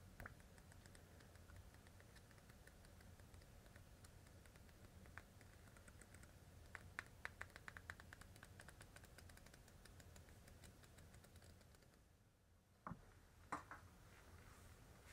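Pages of a small hand-bound paper book flicked rapidly off the thumb, a faint run of quick paper ticks at about ten a second, densest mid-way. Near the end come two soft knocks as a book is handled on a tabletop.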